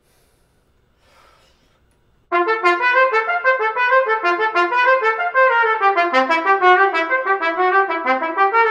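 Solo trumpet comes in a little over two seconds in with a fast, unbroken run of short notes moving up and down. It is an étude passage played back in its normal rhythm after practising it in dotted rhythms.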